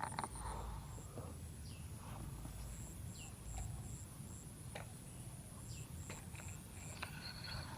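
Insects chirping in short, evenly repeated pulses, with a few short falling bird calls and scattered faint clicks over a low rumble.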